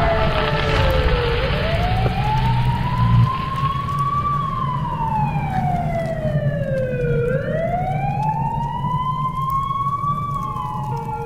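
Wailing siren, its pitch sliding slowly down and back up about once every six seconds, over a steady low rumble. Near the end a steady tone comes in alongside it.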